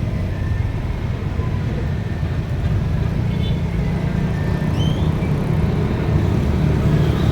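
Bus engine running with a steady low rumble, no horn sounding.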